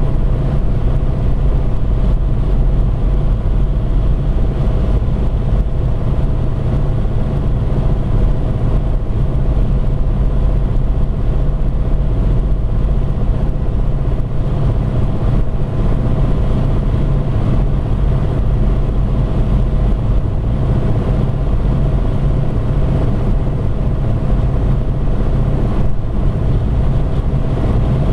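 Steady car cabin noise at highway cruising speed: a low, even drone of tyres, engine and wind that does not change.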